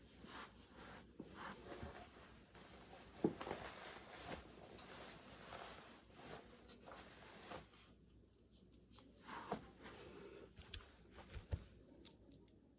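Faint, irregular scratchy rubbing and scraping, with a few light knocks.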